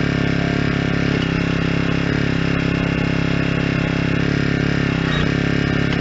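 Small engine of a towable backhoe running steadily under hydraulic load while the boom and bucket are worked. The engine note dips briefly in pitch about five seconds in, then recovers.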